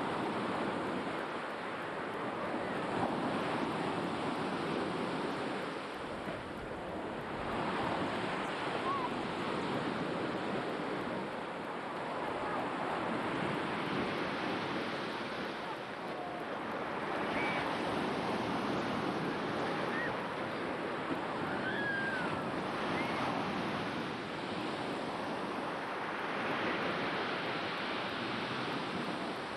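Black Sea surf breaking and washing on the shore, a steady rush of water that swells and ebbs every few seconds.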